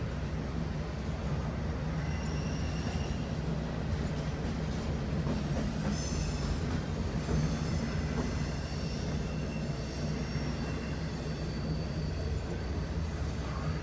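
Freight train of intermodal well cars rolling past: a steady rumble of steel wheels on rail, with faint high wheel squeal coming and going, heard from inside a car.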